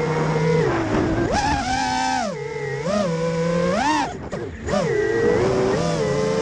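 FPV freestyle quadcopter's brushless motors whining, the pitch sweeping up and down over and over with the throttle. About four seconds in the whine drops out briefly as the throttle is cut, then surges back.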